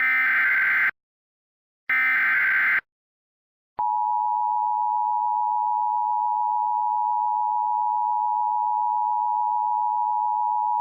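Emergency Alert System SAME header: the last two of three digital data bursts, each about a second long with a second's gap between, then about a second later the steady two-tone EAS attention signal (853 and 960 Hz) starts and holds.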